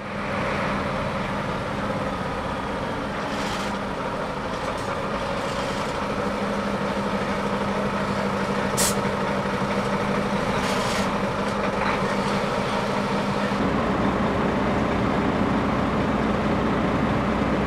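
Diesel engines of loaded Iveco Trakker dump trucks running as the trucks creep onto the bridge for a load test, with a few short air-brake hisses, the sharpest about nine seconds in.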